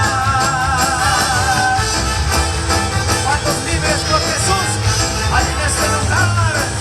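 Live worship band music with a steady bass and drum beat. A note with vibrato is held for the first two seconds or so, then shorter sliding melodic phrases follow.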